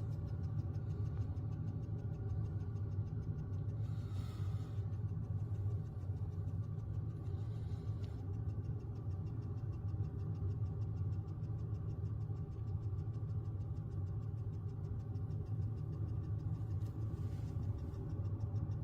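A steady low hum that runs without a break and cuts off suddenly near the end.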